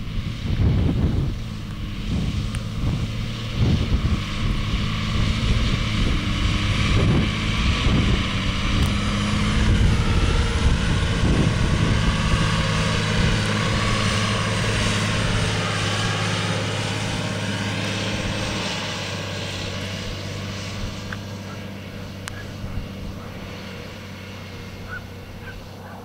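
Claas Arion 610 tractor's six-cylinder diesel engine running steadily as the tractor drives past, loudest about halfway through and fading toward the end. Wind buffets the microphone in the first half.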